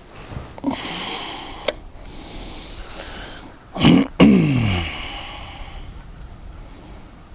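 A man's short, low vocal noise about four seconds in, falling in pitch, made up of two loud parts close together. A sharp click comes a couple of seconds before it.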